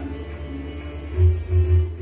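Background music with a steady beat, getting louder about a second in.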